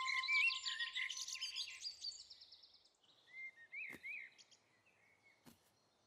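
Birdsong sound effect: a busy burst of overlapping chirps and trills that thins out over the first couple of seconds, then a few single chirps near the middle, with a couple of faint ticks.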